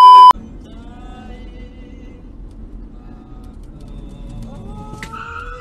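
A loud, steady test-tone beep over a colour-bars transition cuts off about a third of a second in. A car's low engine and road rumble follows, heard from inside the cabin, with several drawn-out rising, wavering tones growing stronger towards the end.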